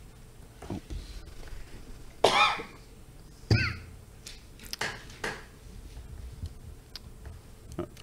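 A person coughing, two loud coughs a little over a second apart, about two and three and a half seconds in, followed by a few faint clicks.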